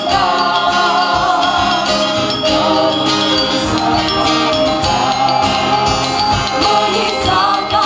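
Live Balinese gamelan music: metallophone bars struck in a dense stream of ringing notes, with a wavering melody line above them.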